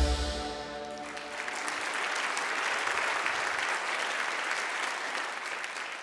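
The last chord of a guitar-and-orchestra song dies away over the first second, then an audience applauds steadily, the clapping fading out near the end.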